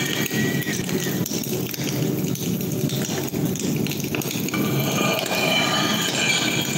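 Atmospheric black metal band playing live: a dense, steady wash of distorted electric guitar and drums, with little bass.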